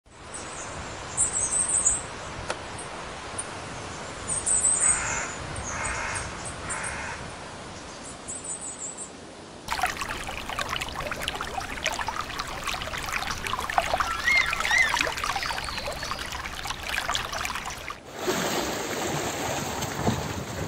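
Crows cawing, three caws about five seconds in, and small birds chirping over outdoor background noise. The background changes abruptly about ten seconds in and again near the end.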